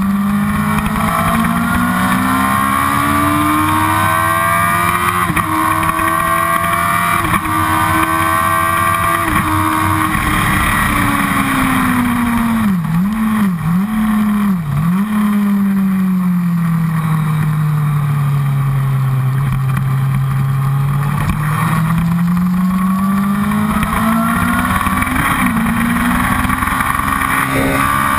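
Honda CBR1000RR inline-four sport bike engine at track speed, heard from the fuel tank. The revs climb steadily, then fall, with three quick dips about halfway through. They stay low for a few seconds and rise again near the end, all over a constant rush of wind.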